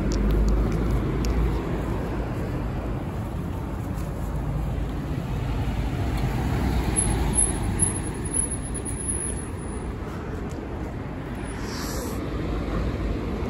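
Street traffic: a steady rumble of cars driving past, with a medium-duty box truck going by about halfway through.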